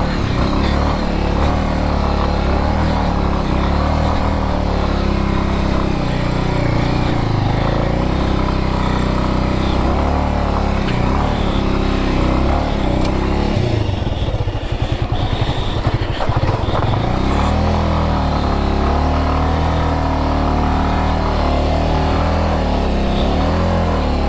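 Bajaj Avenger 220's single-cylinder engine running steadily as the motorcycle is ridden along a rough off-road track. The engine briefly drops to a lower, pulsing note about two-thirds of the way through, then picks up again.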